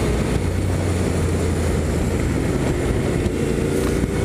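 Honda NC750X's parallel-twin engine running at a steady pace while riding, heard from the rider's own bike under a constant rush of wind and road noise.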